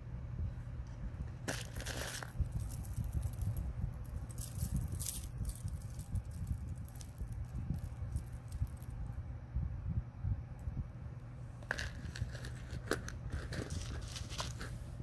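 Gold-tone metal jewelry, jhumka earrings and a necklace hung with small dangles, clinking and jingling as it is handled, in three short clusters of light clicks. A steady low hum and handling rumble lie underneath.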